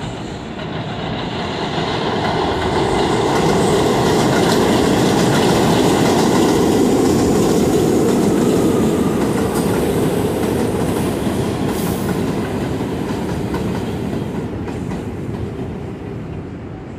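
R62-series subway train running along an elevated steel structure, its wheels rumbling and clattering on the rails. The sound swells as the train approaches, is loudest as it passes about six to eight seconds in, then fades as it moves away.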